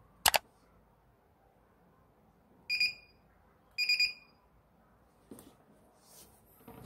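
A sharp click just after the start, then the spot welder control board's buzzer beeping twice, a second apart, in a high tone as its buttons are pressed. Light handling sounds follow near the end.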